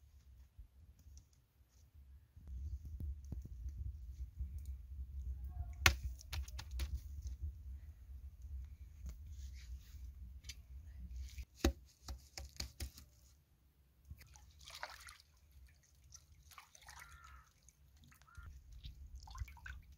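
A low rumble with a few sharp slaps and knocks as naan dough is pressed onto the inside wall of a clay tandoor, the loudest about six seconds in and another near twelve seconds, followed by softer rustling.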